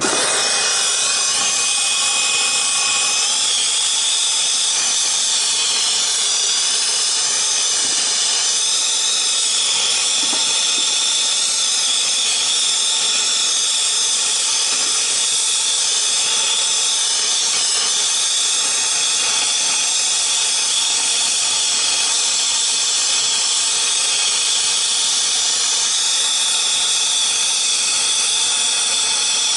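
Brazing torch flame hissing steadily as it heats a refrigeration compressor's brazed line port to unsweat the joint.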